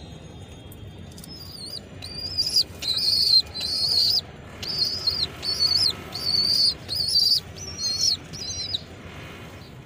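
Pigeon squabs about two weeks old squeaking to beg while a parent pigeon feeds them beak to beak: a rapid run of about a dozen high-pitched, slightly bending squeals, roughly two a second, starting about two seconds in.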